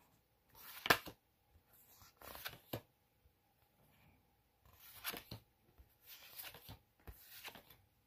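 A stack of printed photo cards handled and flipped through, one card slid over another, making short dry rustles and scrapes every second or two. The loudest is about a second in.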